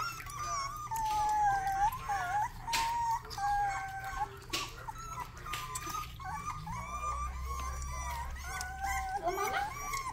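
Rottweiler puppies whining and crying, several high, wavering voices overlapping without pause, with a few short splashes of water being stirred in a bowl.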